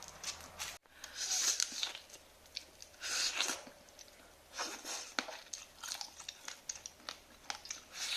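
Irregular crunching and crackling with scattered sharp clicks, of crab or lobster shell being cracked and chewed; the louder crunches come in spells of about half a second to a second.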